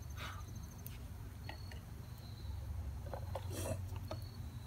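Carbon-steel blade of an LT Wright Bushcrafter HC knife shaving a small block of wood in a few short scraping strokes, the longest and loudest about three and a half seconds in.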